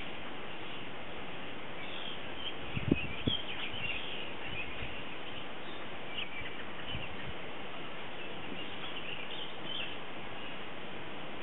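Outdoor ambience: a steady hiss with small birds chirping now and then in the background, and two brief low thumps about three seconds in.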